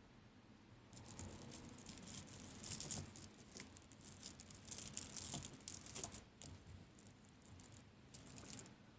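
Stone and glass beads of a stretch bracelet clicking and rattling against each other as it is handled, in a run of quick clicks that starts about a second in, eases off for a moment near the middle, and picks up again before the end.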